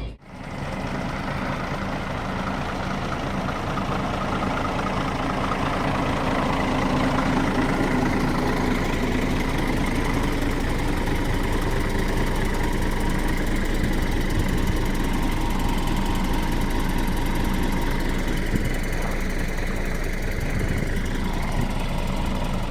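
Iveco EuroStar truck's diesel engine running steadily, heard from inside the cab with road noise.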